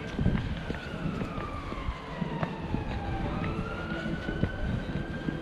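An emergency vehicle's siren in a slow wail, its pitch sliding down for a couple of seconds, climbing back about three seconds in, then falling again, over a low traffic rumble.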